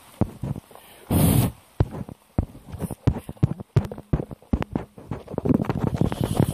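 Yellow Hunter rubber boots moving in a rain puddle: an irregular run of soft knocks and squelches, with a short rushing splash about a second in.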